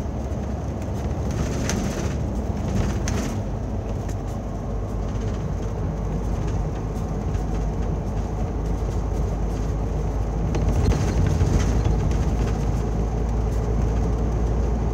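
Steady road and engine noise heard from inside a moving vehicle's cab, growing a little louder about eleven seconds in.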